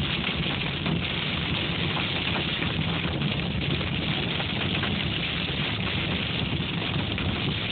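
Hail and heavy rain pelting a car's roof and windshield, heard from inside the cabin as a dense, steady patter of countless small hits, over the low, steady hum of the moving car.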